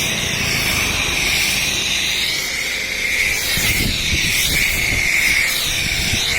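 High-pressure spray hissing steadily, its pitch wavering a little, then cutting off abruptly, as from a pressure washer jet being triggered on and off.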